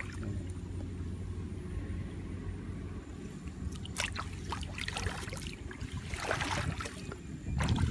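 Water splashing and dripping in a shallow muddy ditch: a few short splashes about four seconds in and a small cluster towards the end, over a steady low rumble.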